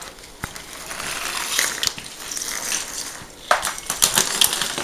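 Automotive wiring harness being handled and moved: rustling of the wires with small clicks and clacks of the plastic connectors. A run of sharper, louder clicks comes about three and a half seconds in.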